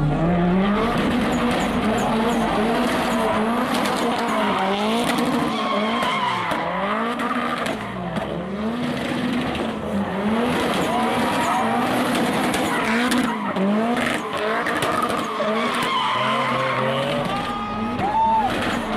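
A car doing donuts: its engine revs up and down about once a second while the tires squeal and skid.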